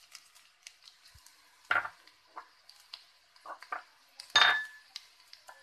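Metal slotted spatula knocking and scraping against a kadhai while stir-frying noodles: a handful of separate clanks, the loudest about four and a half seconds in with a short metallic ring.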